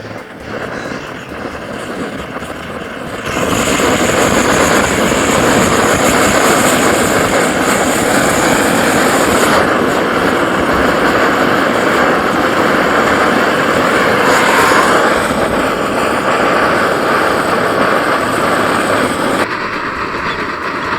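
Outdoor gas stove burner running with a steady rushing noise, which gets much louder about three seconds in, as when the flame is turned up.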